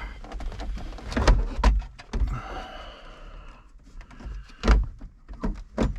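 Hands working the plastic overhead console and its wiring inside a truck cab: a string of sharp plastic clicks and knocks, with a short creaking scrape about two seconds in.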